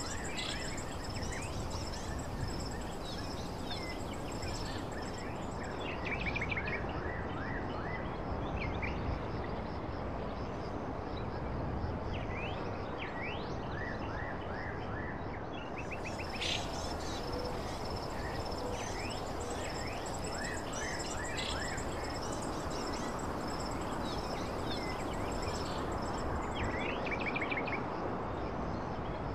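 Outdoor ambience: birds chirping in short quick series over a steady background noise, with a thin high-pitched tone underneath.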